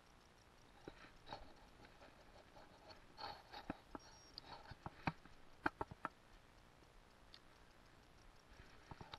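Spinning rod and reel handled through a cast: scattered sharp clicks and taps, clustered between about three and six seconds in, against near silence.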